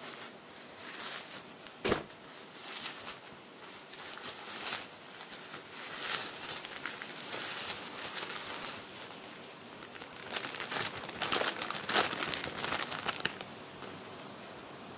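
Bubble wrap and a thin plastic bag crinkling and rustling in the hands as a rubber shock absorber mount is unwrapped, with a sharp crack about two seconds in. The crinkling comes in irregular bursts, loudest in the second half, and dies down near the end.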